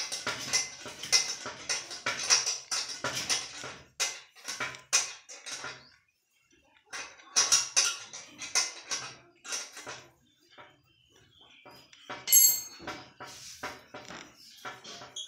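Hand tools and metal machine parts clinking and scraping in a rapid irregular run of clicks, pausing briefly about six seconds in, then one bright ringing metallic clink about twelve seconds in, the loudest sound.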